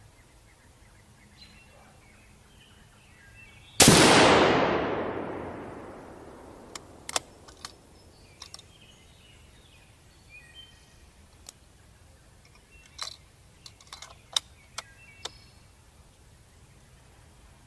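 A single shot from a scoped 6mm Creedmoor precision rifle about four seconds in: a sharp crack whose echo dies away over two to three seconds. A few faint clicks follow later.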